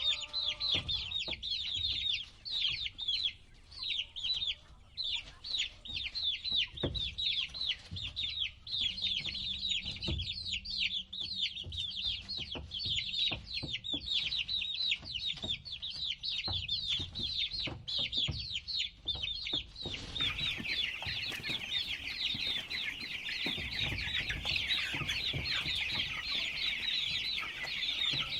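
A brood of baby chicks peeping nonstop, many short, high, downward-sliding chirps overlapping, with soft knocks now and then underneath. About twenty seconds in, the sound changes to a denser, brighter chorus of chicks.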